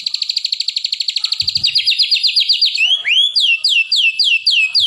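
White-rumped shama (murai batu) singing a loud, fast trill of about a dozen repeated notes a second, the canary-style rapid-fire song called 'nembak kenari'. About three seconds in it breaks into a rising whistle and then a run of slower down-slurred notes, a few a second.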